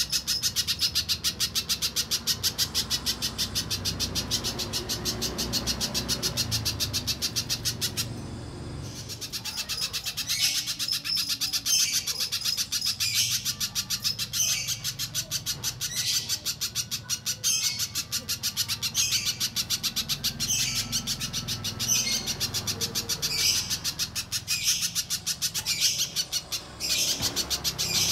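Spiderhunter (pijantung pisang) song: a fast, continuous run of high chipping notes. It breaks off briefly about eight seconds in, then resumes with louder notes repeated roughly every second and a half over the rapid trill.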